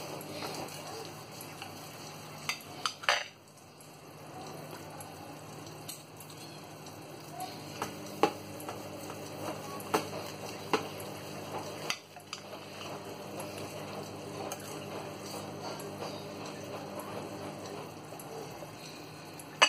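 Knife and metal tongs clicking against a ceramic plate now and then while a roasted leg of lamb is carved, over a steady sizzle from a pan of sauce simmering on the hob.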